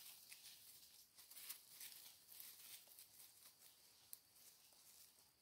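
Near silence: a faint high hiss with a few soft ticks and rustles.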